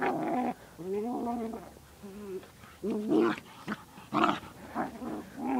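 Bichon and Sprocker puppies growling and barking as they play-fight, with short sharp barks about three and four seconds in.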